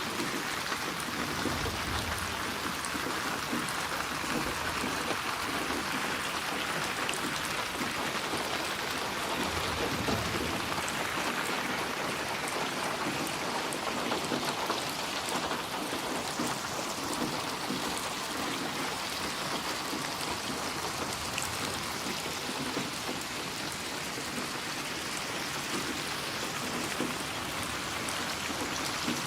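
Steady, continuous rain falling and pattering on surfaces, an even hiss of drops.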